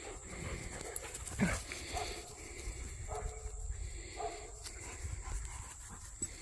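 Two dogs playing, giving short barks and yips about once a second, the loudest about a second and a half in. A steady high-pitched whine runs behind them.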